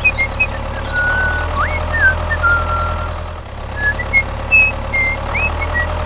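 Tractor engine idling with a steady low rumble, with short high whistled chirps, some sliding up, scattered over it.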